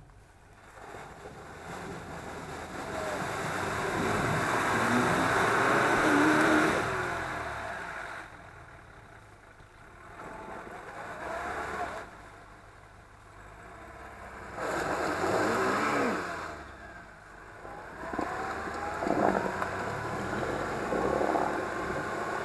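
Off-road 4x4's engine revving in four surges, its pitch rising and falling with each push of the throttle.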